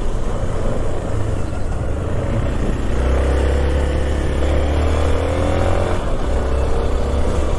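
Hero Xpulse 200 4V's single-cylinder four-stroke engine running under way, with low wind rumble on the microphone. The engine pitch climbs gently between about three and six seconds in as the bike speeds up.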